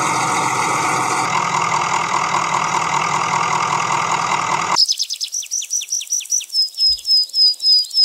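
A vehicle engine runs steadily, then cuts off abruptly about five seconds in. A run of high-pitched chirps takes over and settles into evenly spaced beeps, about three a second, getting louder.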